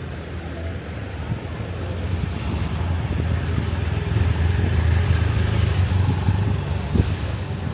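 A motor vehicle passing close by on the street, its engine and tyre noise growing louder to a peak about five seconds in and then fading.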